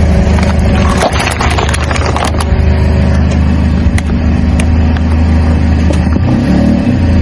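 Car engine running steadily with a low hum while its tyre rolls over plastic cups full of liquid: a dense run of crackling about a second in, then scattered sharp clicks.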